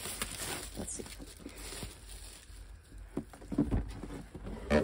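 Plastic shrink wrap crinkling and rustling as it is pulled off a board game box, loudest in the first second or so, followed by a few soft knocks of the cardboard box being handled.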